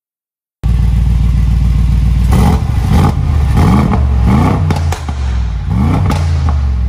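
Mercedes-AMG G 63 twin-turbo V8 idling through its side-exit exhaust and being blipped about five times, each rev a quick rise and fall in pitch. It starts abruptly about half a second in.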